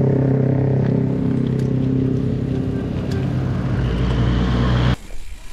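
A motor vehicle's engine running steadily, which cuts off abruptly about five seconds in.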